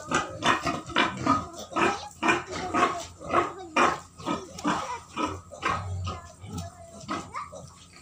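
White pigs, a sow and her piglets, calling in a rapid run of short grunts and squeals, about two a second, growing weaker in the last few seconds.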